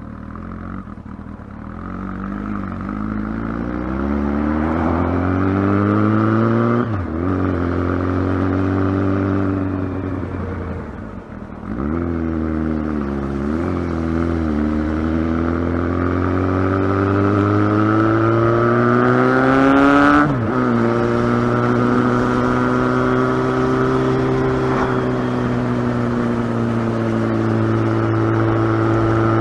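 Kawasaki ZX-12R's inline-four engine pulling through the gears: the pitch climbs steadily under acceleration and drops sharply with an upshift three times, then holds a high steady cruise near the end.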